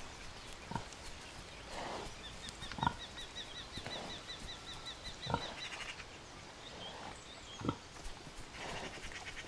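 Domestic sow giving four short grunts, about two and a half seconds apart. A rapid run of high chirps sounds for a few seconds in the middle.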